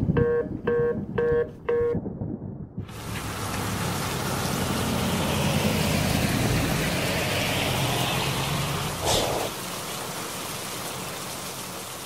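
Four short electronic beeps, then steady heavy rain with a low rumble beneath it and a brief sharp crack about nine seconds in.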